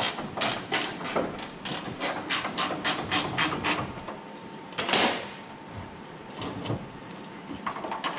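Ratchet wrench clicking rapidly and evenly, about five clicks a second, as a hood hinge bolt is backed out. A louder scrape comes about five seconds in, and a few more clicks follow near the end.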